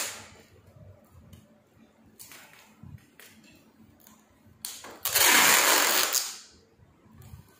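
Adhesive tape pulled off the roll in one long rasping rip lasting about a second and a half, about five seconds in, with light handling taps and rustles before it.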